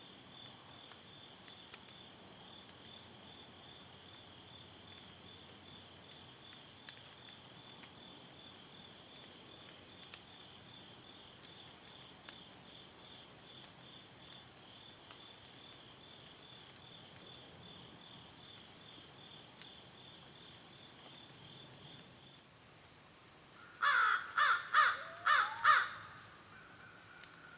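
Steady high-pitched chorus of insects trilling, with a pulsing chirp that drops out about 22 seconds in. Near the end a crow caws five times in quick succession, loudly.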